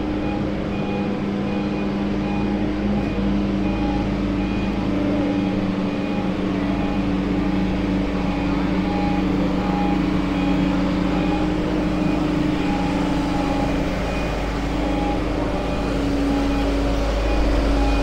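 Engine of a truck-mounted aerial work platform running steadily with a low hum, and a faint beep repeating about twice a second.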